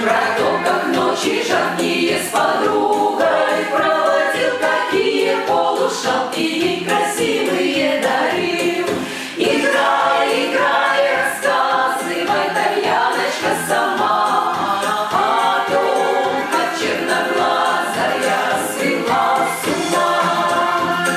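Folk vocal ensemble singing a Soviet song in chorus, several voices together.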